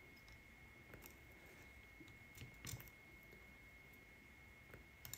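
Near silence with a few faint clicks of small plastic servo cable connectors being handled and pushed onto a circuit board's header pins, over a faint steady high tone.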